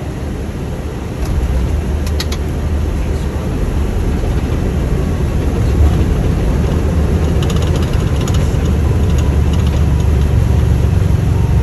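Airbus A320 rolling out on the runway just after touchdown, heard from the cockpit: a loud steady low rumble that grows about a second in and holds, with a few short bursts of light clicking.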